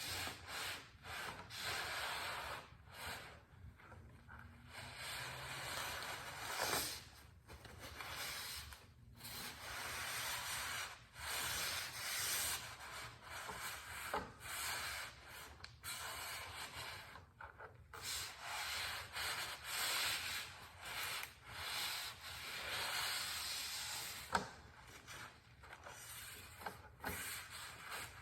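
Repeated, irregular rubbing and wiping strokes, a rag cleaning up spilled oil after the drain.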